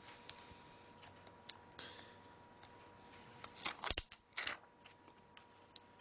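Small plastic clicks and taps from a Nokia E7 mobile phone being handled after reassembly, with a quick run of louder clicks about three and a half to four and a half seconds in.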